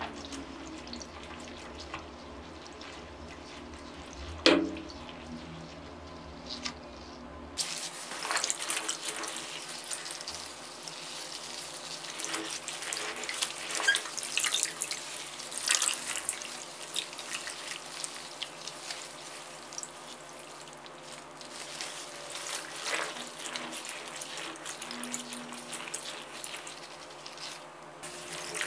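Water sloshing and splashing in a plastic basin as gloved hands squeeze and knead wet clothes soaking in bleach solution, in irregular bursts of wet squelching. There is one sharp knock about four and a half seconds in.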